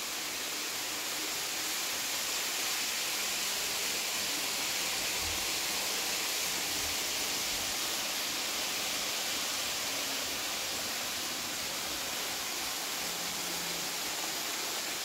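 Steady rushing whir of model trains running on a large layout, with a few faint low thuds near the middle.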